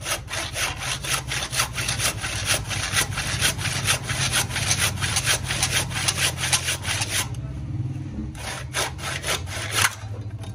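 Hand saw cutting through wood in quick back-and-forth strokes, about three to four a second, with a short pause about seven seconds in before a few more strokes. A steady low hum runs underneath.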